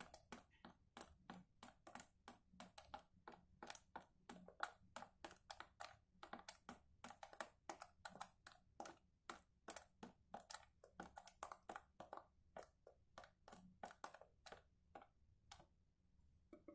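Water from a hose trickling into a plastic PET bottle, heard as a faint, quick, irregular run of small splashes and clicks, about three a second, thinning out near the end.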